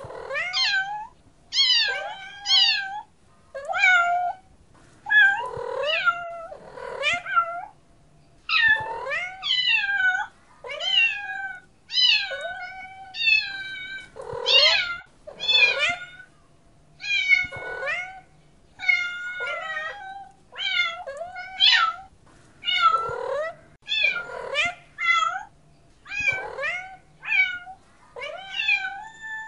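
Domestic cat meowing over and over, a long series of separate meows about one a second, many falling in pitch at the end.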